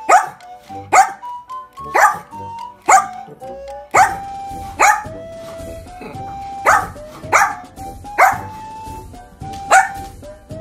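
A Yorkshire terrier barking at a crab in a glass tank, one bark about every second, over light background music.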